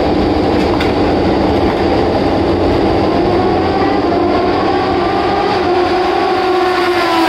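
Racing motorcycle engines running at high revs on the circuit: a loud, steady drone whose engine note climbs after a few seconds and drops away near the end.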